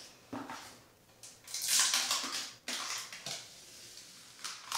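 Rustling and crackling of a peel-and-stick vinyl tile and its backing paper being handled and peeled off, with a few light knocks. The loudest part is a burst of about a second near the middle.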